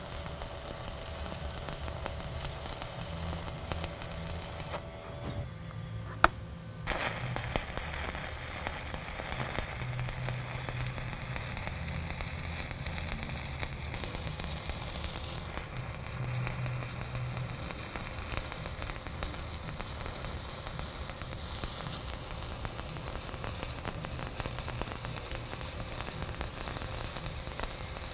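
Stick (SMAW) welding arc laying the cap pass on a 6-inch schedule 80 steel pipe, the burning electrode giving a steady crackling sizzle. About five seconds in the crackle drops away for roughly two seconds, with one sharp click, then starts again.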